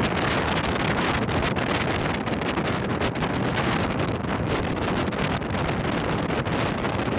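Steady rush of wind buffeting the microphone, with road noise from a moving vehicle underneath.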